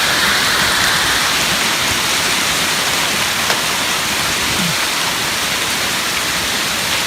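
Heavy storm rain with hail pelting down, a loud, steady dense hiss that does not let up.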